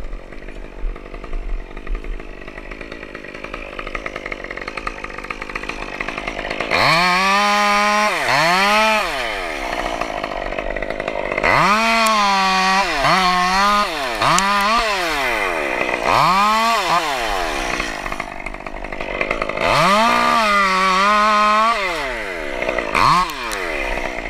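Chainsaw idling for about six seconds, then revved to full throttle in about eight bursts, each rising sharply, holding briefly and dropping back to idle, as it cuts pine; the chain is dull.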